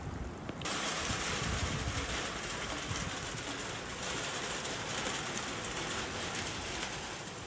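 Steady rain falling, an even hiss that comes in abruptly under a second in and holds steady.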